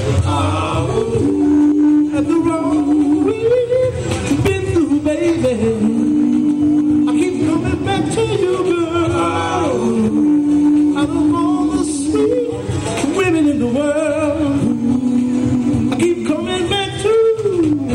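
Male vocal group singing live into microphones: long held harmony notes and sliding, wordless vocal lines over a backing track with a steady beat.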